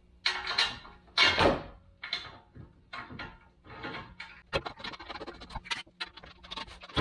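4x4Labs steel rear bumper shell being held up against the frame and bolted on by hand: a few scraping shuffles as the piece is moved into place, then, from about halfway through, a quick run of small metallic clicks and taps as the bolts are started.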